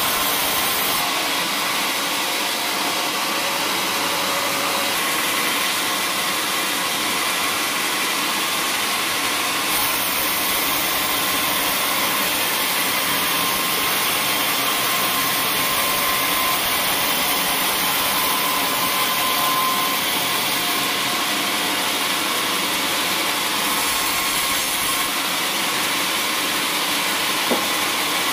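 Large bandsaw mill running steadily, its blade ripping lengthwise through a teak beam with a continuous hiss of cutting over the machine's drone. There is one short click near the end.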